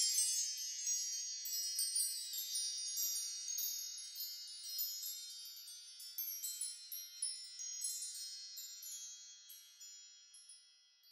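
Wind-chime sound effect: a cascade of high, tinkling bell-like notes that overlap and ring on. It is loudest at the start and fades gradually over about ten seconds.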